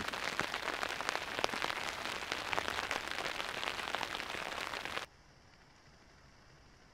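Rain falling, with many individual drops ticking close by over a steady hiss. It cuts off suddenly about five seconds in, leaving only a faint hiss.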